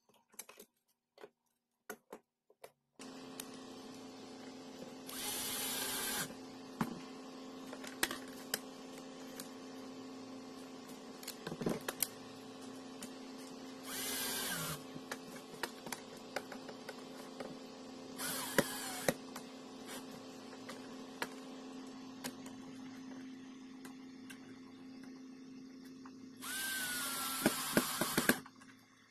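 Cordless drill driving screws into concealed cabinet hinges, running in four short bursts of a second or two each, the last one longest. Between the bursts come small clicks of handling, over a steady low hum.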